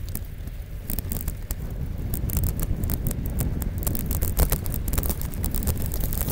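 Mountain bike riding over a rough dirt track: wind buffeting the bike-mounted camera's microphone makes a steady low rumble, and the knobbly tyres and the bike rattling over ruts add a rapid stream of clicks and knocks that gets busier from about a second in.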